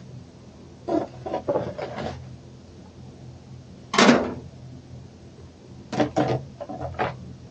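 Leaf grabbers scooping dead leaves off a hard path, with a run of short scrapes and rustles. About four seconds in comes the loudest sound, a rustling clatter as a load of leaves is dropped into a metal wheelbarrow. A few more scoops follow near the end.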